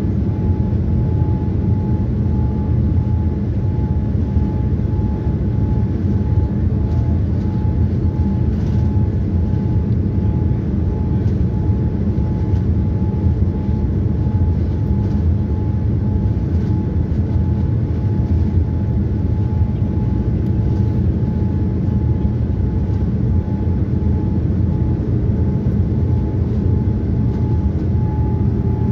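Steady cabin roar inside a Boeing 787-9 on final approach, from the engines and the airflow over the extended flaps, with a thin steady whine running through it.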